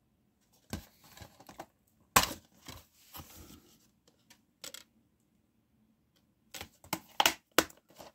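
Plastic DVD case being handled, opened and closed: a string of sharp clicks and short rattles of the case, the loudest snap about two seconds in and another quick run of clicks near the end.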